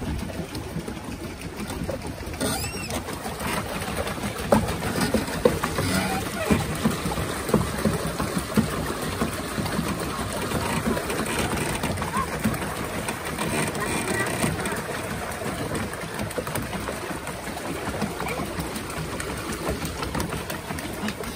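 Rented pedal boat under way, its paddle wheel turning in the water with a steady churning and small irregular knocks.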